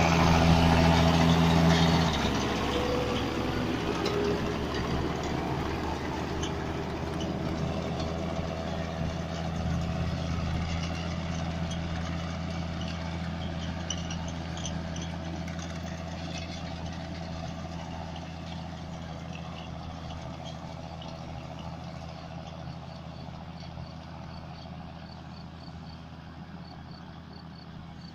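John Deere 6620 tractor engine running steadily as it pulls a working Claas Rollant 255 round baler. It is loud close by for the first two seconds, then drops and fades gradually as the rig moves away.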